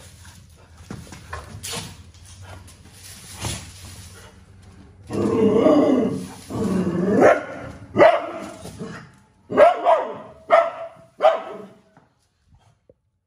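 A dog barking at a snake: a few seconds of quieter scuffling, then drawn-out calls about halfway in, followed by a run of about five short, sharp barks that stop about a second before the end.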